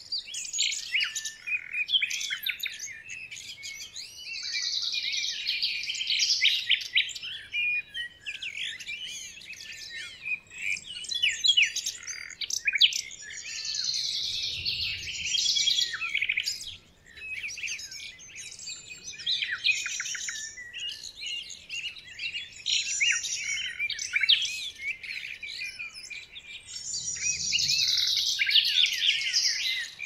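Many birds chirping and twittering at once: a dense, unbroken run of high, overlapping calls and quick trills.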